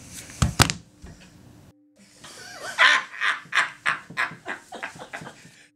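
Two men laughing loudly and heartily in rapid bursts, starting about two seconds in. A couple of sharp knocks come just before.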